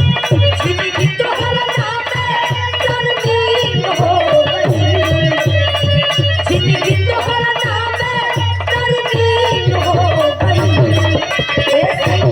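Instrumental folk music passage: a wavering melody line over a steady drum beat, with fast, even ticks of a small percussion instrument.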